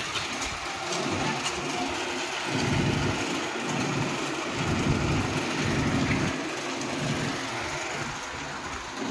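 Engine of a concrete-mixing machine (lanter machine) running steadily during a roof-slab pour, its low hum swelling and easing about once a second.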